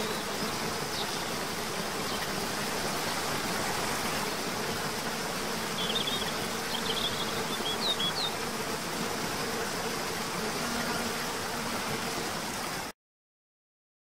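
Waterfall rushing steadily, with a faint low hum beneath and a few short, high bird chirps in the middle. The sound cuts off suddenly near the end.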